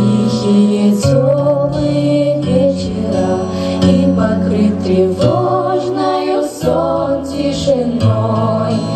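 A group of women singing together into microphones over instrumental accompaniment, amplified through the stage speakers.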